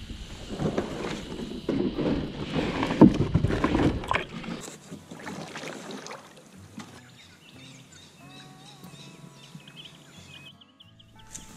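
Tarpon sit-on-top kayak being launched off a muddy riverbank. The plastic hull scrapes over the mud and water splashes as it is pushed off and boarded, loudest about three seconds in, followed by quieter paddle strokes. From about seven seconds in, soft background music takes over.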